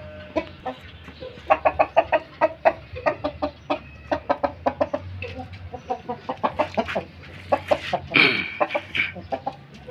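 Chickens clucking in quick short calls, several a second, with a louder, longer squawk that falls in pitch about eight seconds in.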